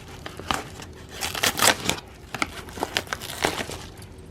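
A mailed package being torn open by hand, its wrapping crinkling and tearing in irregular bursts.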